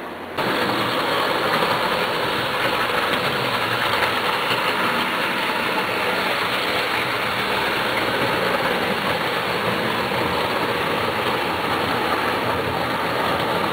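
HO-scale model trains running past on the layout track: a steady whirring, rolling noise of motors and wheels that starts abruptly less than half a second in.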